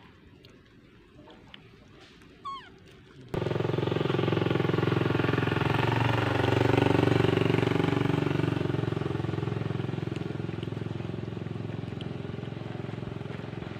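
A motor vehicle engine running steadily close by, starting abruptly about three seconds in, loudest around the middle and slowly easing off. Before it, a brief high squeak over near quiet.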